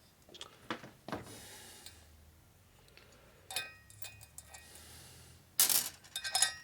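Small metal parts and tools clinking and tapping on a workbench: a few light clicks with a brief metallic ring, then a quick run of louder rattling clinks near the end.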